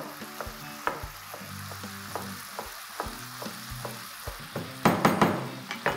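Chef's knife chopping fresh fenugreek leaves on a wooden cutting board: irregular knocks of the blade on the board about once or twice a second, with a louder quick run of chops about five seconds in. Soft background music underneath.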